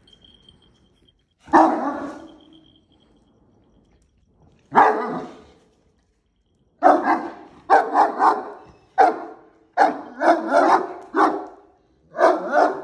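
Dogs barking at each other across a mesh gate: a single bark, another a few seconds later, then a rapid string of barks from about seven seconds in.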